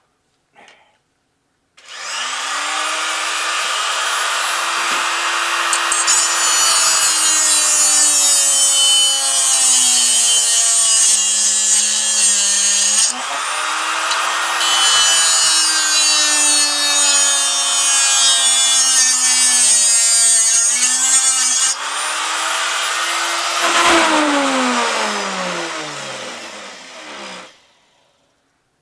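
Handheld cut-off tool starts up and runs at high speed, cutting with a harsh, hissing grind. Its motor pitch drags down under load twice, then winds down with a falling whine once it is released near the end.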